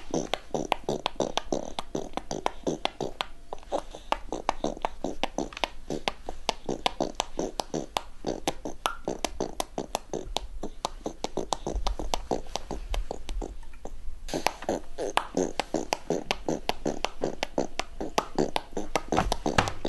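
A baby making rapid lip-popping and smacking mouth noises, a quick run of clicks several a second, like beatboxing.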